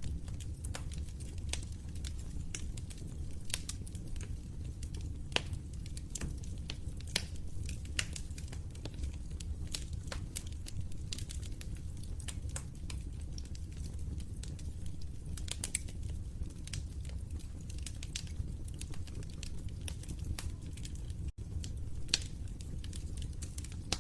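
Wood fire crackling: irregular sharp pops and snaps over a steady low rumble of burning. The sound drops out for an instant near the end.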